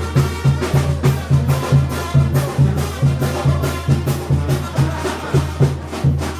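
Music with a fast, steady drum beat, about four beats a second, and a low note pulsing on each beat.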